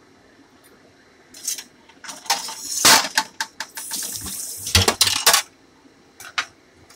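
Metal kitchenware clattering and clinking: a stainless steel bowl and a knife being knocked about and set down, in a string of sharp knocks with the loudest ones about three and five seconds in.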